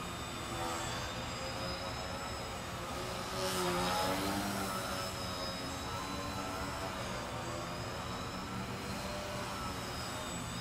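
Electric motor and propeller of a 16 oz EPP foam Yak RC aerobatic plane in flight, a buzzing whine whose pitch rises and falls with the throttle. It swells louder about three and a half seconds in, as the plane passes close.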